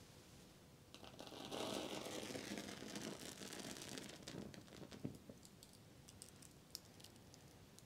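A small piece of dry material burning in the hand: faint crackling that starts about a second in and lasts about three seconds, then a few scattered faint clicks.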